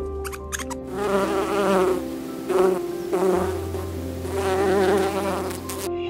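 Flying insects buzzing in three wavering swells, over steady background music with a held low bass note.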